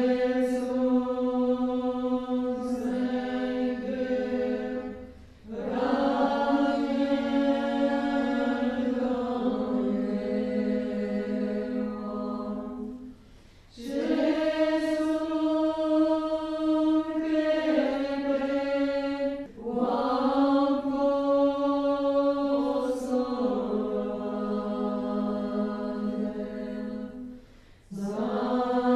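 A group of women's voices singing the Bön long-life prayer in unison as a slow chant. Long held notes come in phrases, with a short breath pause about every six to eight seconds.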